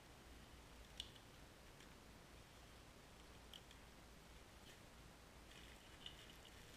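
Faint handling sounds of a cardboard mailer box having its lid opened: a single sharp tap about a second in, a weaker one midway, and a short cluster of small crackles near the end as a hand presses the foil-wrapped package inside.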